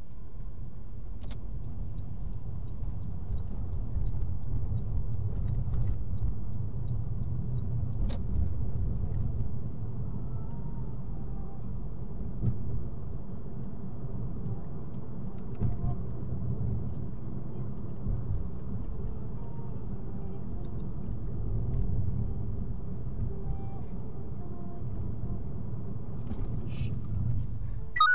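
Car driving along a city road, heard from inside the cabin: a steady low rumble of tyres and engine. Right at the end comes a brief, sharp high-pitched sound.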